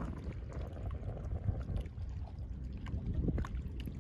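Small waves lapping and splashing against a rocky shoreline, with scattered little plinks of water and a low rumble of wind on the microphone.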